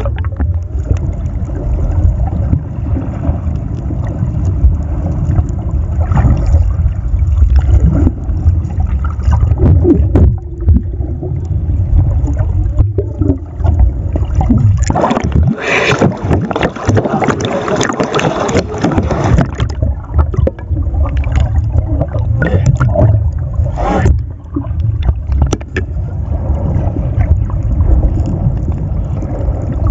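Muffled low rumble and sloshing of water heard through a submerged camera, with a few louder, splashier bursts about halfway through and again a little later.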